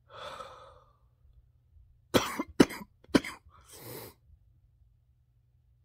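Person sick with COVID-19 coughing: a breath, then three short, sharp coughs close together about two seconds in, then another breath. The cough goes with her COVID chest symptoms.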